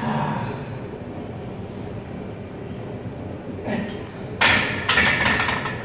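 Iron weight plates clanking against the barbell sleeve and each other as they are slid off and handled. There is a run of sharp metallic clanks, starting a little past halfway, with the loudest clank near the end.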